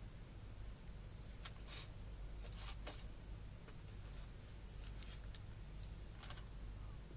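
Faint, scattered crackles and clicks as a caramel cake topped with crumbled biscuit and raspberries is picked apart by hand in its cardboard box, over a steady low hum.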